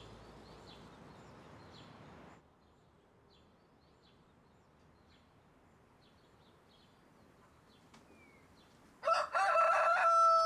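A faint tail of music fades out, then near silence with a few faint bird chirps. About nine seconds in, a rooster starts crowing loudly, a long pitched call that drops away at its end, waking the sleepers.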